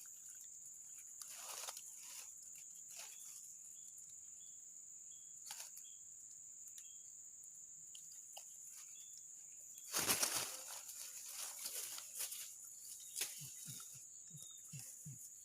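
Tropical forest ambience: a steady high-pitched insect drone, with faint scattered rustles and a louder burst of rustling about ten seconds in.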